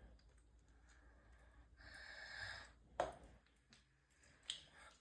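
Near silence in a small room, broken by a soft breath-like hiss about two seconds in and one sharp click about a second later.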